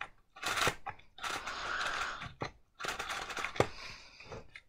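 Paper model V8 engine's cardstock parts rustling and clicking as it is handled and turned in the hands: several short scratchy rustles with a few sharp clicks, the loudest about three and a half seconds in.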